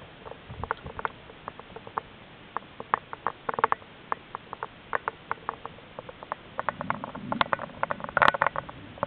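Underwater clicking and crackling: irregular sharp clicks, a few a second, growing denser near the end, with a low rumbling swell about two thirds of the way in.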